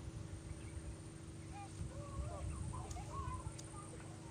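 Wind rumbling on the microphone, with a cluster of faint, short bird calls through the middle.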